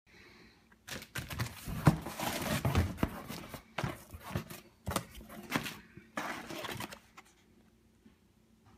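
A cardboard box being opened by hand and the packaging inside handled: a run of irregular scraping, crinkling and rustling of cardboard, paper bags and plastic wrap that begins about a second in and stops about seven seconds in.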